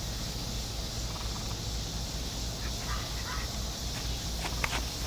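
Nine-week-old standard poodle puppies at play: a few faint short squeaks around the middle and some light clicks near the end, over a steady low hum and hiss.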